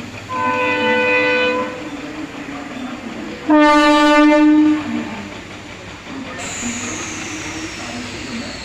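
EMD diesel locomotive's multi-tone air horn sounding two blasts about three seconds apart, the second louder, over the steady running noise of the train. Near the end a thin high tone glides slowly down.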